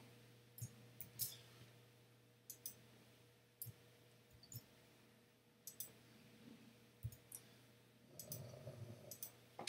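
Faint computer mouse clicks, single and in quick pairs, about one a second.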